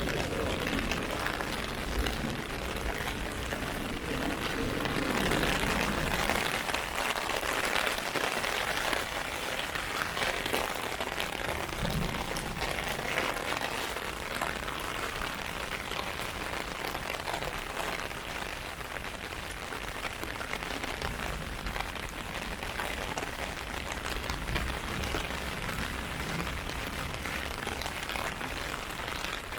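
Heavy rain falling steadily and pattering on an umbrella, with a low rumble during the first several seconds.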